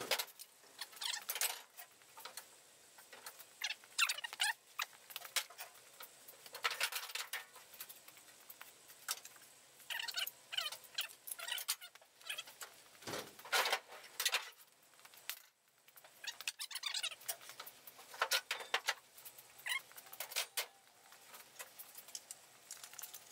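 Intermittent quiet handling noises of old car parts being picked up and sorted: short scrapes, rustles and light clinks, with one duller knock about 13 seconds in.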